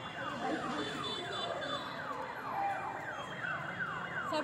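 An electronic siren sounding in a fast repeating pattern of falling sweeps, about two to three a second.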